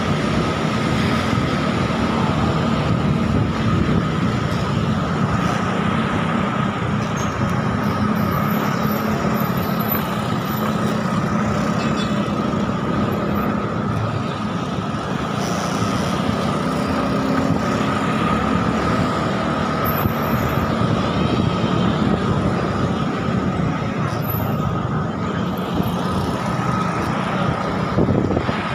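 Motorcycle engine running steadily at low riding speed, with other motorcycles and cars running close by.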